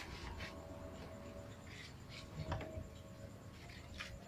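Scattered scratching and rustling sounds, with a dull knock about two and a half seconds in.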